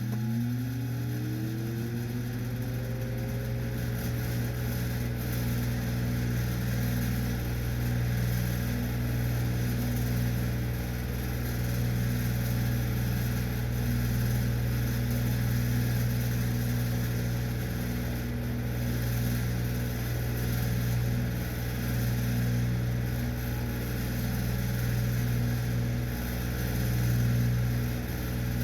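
Rusted desktop fan running: its motor whine rises in pitch over the first three seconds or so as it spins up, then levels off into a steady whirring hum with a strong low drone.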